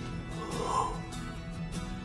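Quiet background music with soft held tones.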